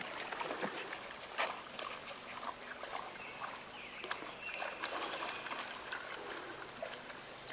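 A dog splashing through shallow river water: a string of irregular splashes and sloshes as it wades and pounces after frogs.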